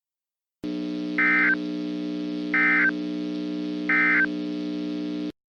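Emergency Alert System end-of-message signal: three short buzzy bursts of digital data tones, about a second and a half apart, over a steady low drone that cuts off suddenly just after the third burst.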